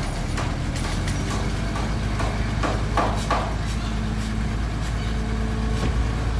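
Heavy diesel engine of earthmoving machinery running steadily, with scattered sharp knocks, a cluster of them about three seconds in.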